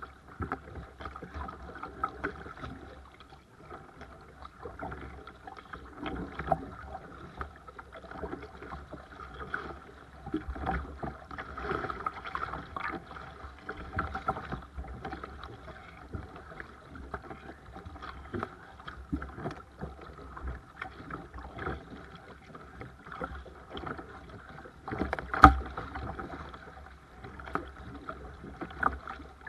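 Seabird Discovery sea kayak under way: irregular splashing of paddle strokes and water against the hull, over a low steady rumble. There is one sharp knock about 25 seconds in.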